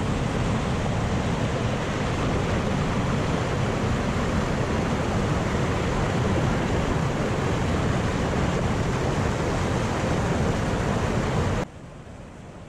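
Steady rush of water pouring and churning through the chambers of a concrete fish ladder at a river dam. Near the end it drops suddenly to a quieter rush.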